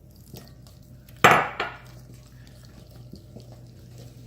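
A single loud clatter of kitchenware about a second in, a dish or utensil knocking and ringing briefly, followed by a smaller knock. A faint steady hum lies underneath.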